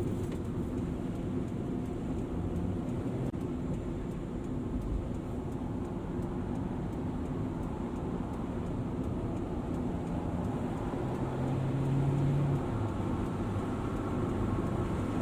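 Car driving, with steady engine and road noise; an engine hum grows louder for a couple of seconds near the end.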